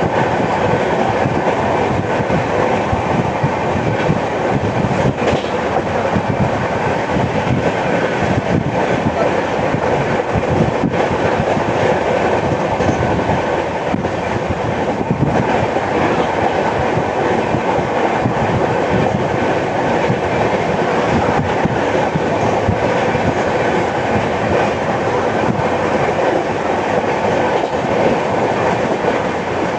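Indian Railways mail express train running steadily on the line: a continuous rumble of wheels on rails with a few faint clicks from the track.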